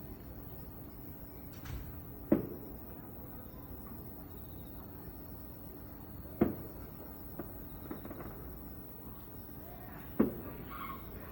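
Fireworks shells bursting, three sharp booms about four seconds apart, each with a short echoing tail.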